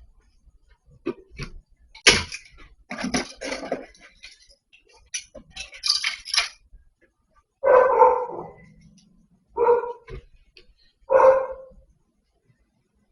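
A dog barking three times, each a short single bark about one and a half to two seconds apart, after several seconds of clattering and rustling.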